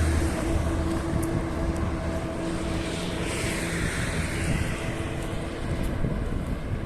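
Motor traffic: a steady engine hum, with a vehicle passing by about halfway through.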